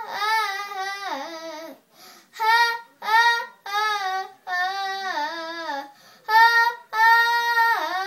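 A young girl singing unaccompanied, in short phrases of long held notes, several sliding down in pitch, with brief pauses between phrases.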